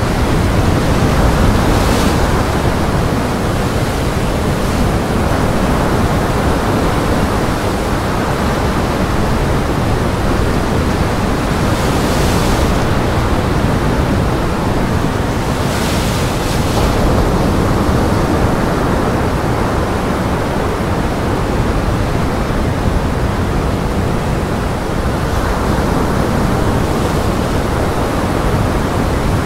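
Strong gale wind and breaking surf: a dense, steady rush of noise, with brief hissing swells about two, twelve and sixteen seconds in.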